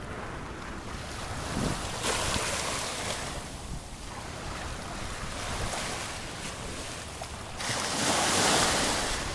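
Small waves washing up over the sand and drawing back, a steady hiss that swells twice: once about two seconds in, and loudest near the end.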